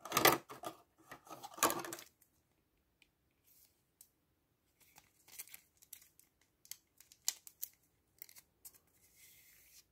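A trading card being slid into a soft plastic penny sleeve and then into a rigid plastic top loader: plastic scraping and rustling for about the first two seconds, then scattered faint ticks and light scrapes.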